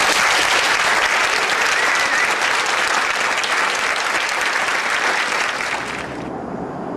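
Audience applauding: dense, steady clapping from a roomful of people that thins and softens about six seconds in.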